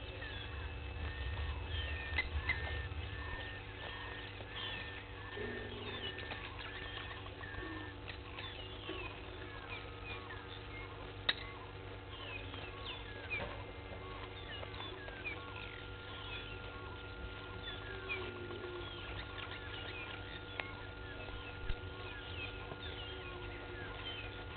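Many wild birds singing and calling at once in the bush, short chirps and whistles overlapping throughout. One bird repeats the same note about eight times in the first seven seconds, and a steady thin whine runs through the second half.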